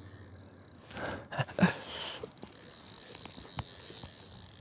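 Rustling and a few sharp knocks from about a second in, as an angler steps through dry reeds at the water's edge to net a hooked carp.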